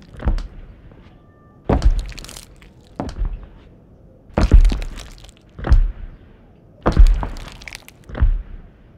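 Heavy footstep sound effects of a giant walking: a deep thud with a crackling crash about every second and a quarter, seven in all.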